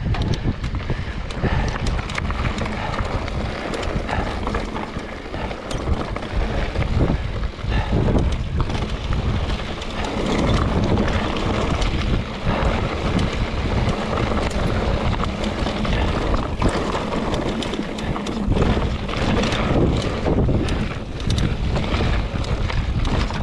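Wind buffeting the microphone while a mountain bike rolls over a rocky trail, with a continuous rumble of tyres on rock and frequent short knocks and rattles from the bike.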